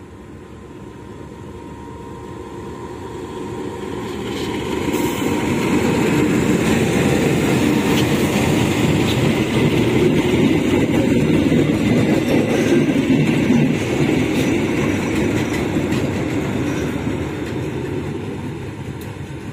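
A diesel-hauled railway crane train passing close by. The locomotive and the rolling wheels build up, are loudest about midway, then fade as the heavy crane wagons roll past with occasional clicks of wheels on the rails.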